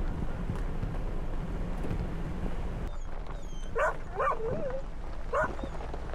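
A low vehicle rumble for the first three seconds, which then drops away. A dog whines in a few short, bending cries from about four seconds in.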